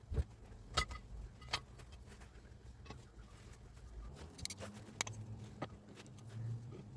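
A few separate sharp clicks and knocks, about five in all, over a faint low hum: hard objects being handled or set down during the repair of a Hilti TE905 breaker.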